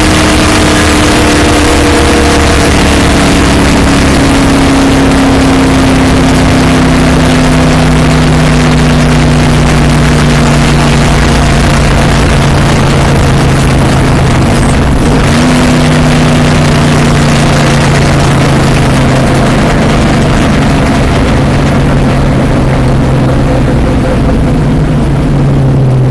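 Stock car's V8 engine heard from inside the cockpit, very loud and continuous, its pitch slowly falling as the car slows toward pit road. About halfway through the pitch drops in a step, then the engine runs on steadily at a lower pitch.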